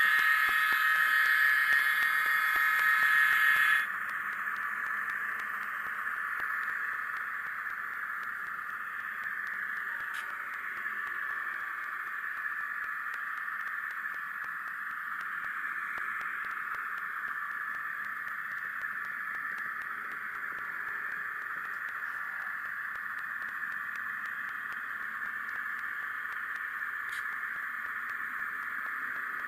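On30 model steam locomotive's sound decoder sounding its multi-tone whistle for about four seconds, followed by a steady hiss as the train keeps running.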